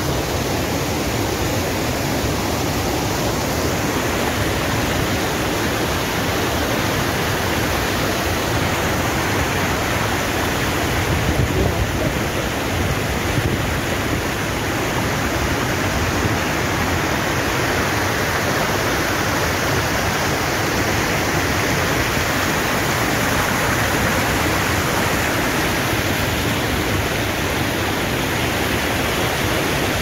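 Steady, loud rushing of a large waterfall, swollen to full force by days of rain.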